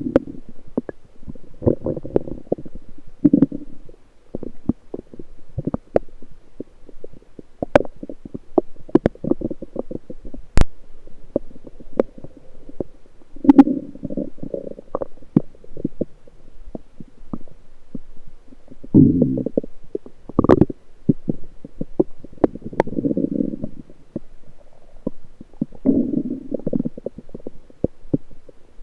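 Bowel sounds from the lower intestines picked up through a USB electronic stethoscope: bursts of low gurgling and rumbling every few seconds, with many short sharp clicks in between.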